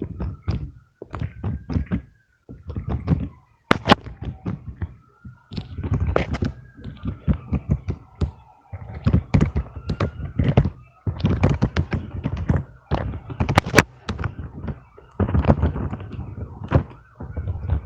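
Fidget toys being tapped and handled: clusters of rapid soft tapping and thudding, with two sharper clicks, one about four seconds in and one near 14 seconds.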